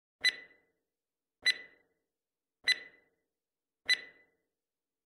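Countdown timer sound effect: short electronic tick-beeps, each with a brief ringing tone, struck evenly about every 1.2 seconds, four of them plus a fifth just at the end, counting down the seconds left to answer.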